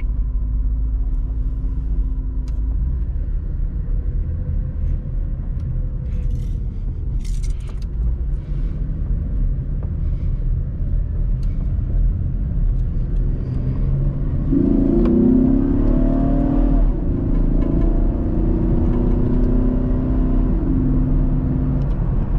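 2015 Chevrolet Camaro's 3.6-litre V6 running as the car drives off, with a steady low rumble; about fourteen seconds in the engine note rises as it accelerates, then holds steady.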